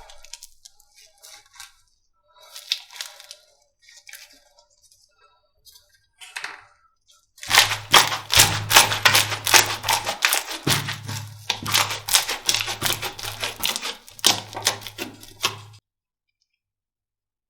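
Slime being pressed and squeezed, giving sharp crackling and popping clicks. The clicks are scattered at first, then come thick and fast from about seven seconds in with a low thudding underneath, and stop abruptly near the end.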